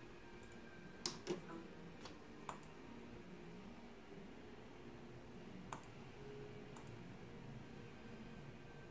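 A handful of short, sharp clicks, the loudest two close together about a second in and a few lighter ones later, over faint steady room noise.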